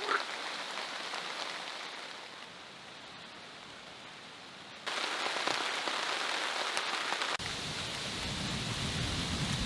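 Heavy rain falling and pattering on surfaces. It turns abruptly louder about five seconds in, and a low rumble joins about two and a half seconds later.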